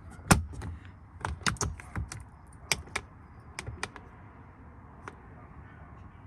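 A string of light plastic clicks and taps, about a dozen over the first four seconds and one more later: a vehicle's interior plastic trim panel being handled and clipped in place.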